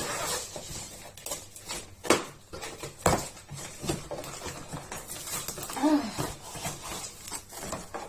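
A package being cut and opened by hand: irregular crinkling and rustling of the packing, with sharp knocks about two and three seconds in. A short falling voice-like sound comes near six seconds.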